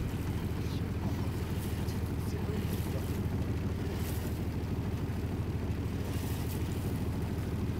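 Small boat under way at low speed: a steady low rumble with faint splashes of water.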